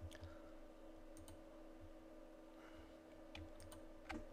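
Faint, scattered clicks of computer keys and a mouse, half a dozen or so, the clearest near the end, over a steady low electrical hum.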